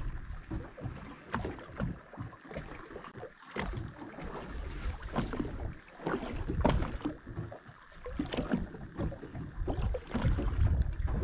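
Wind on the microphone and water slapping against the hull of a drifting boat, in uneven gusts and splashes.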